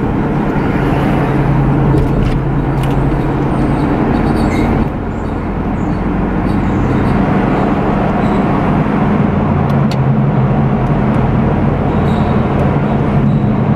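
Steady road noise and engine hum inside a moving car's cabin.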